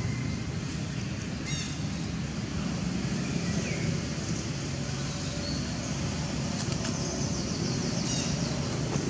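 Steady outdoor background rumble, with a few short, high chirps from small birds or a baby monkey scattered through it.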